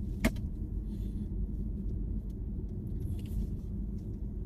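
Steady low road rumble of a car in motion, heard from inside the cabin, with a brief sharp click about a quarter second in.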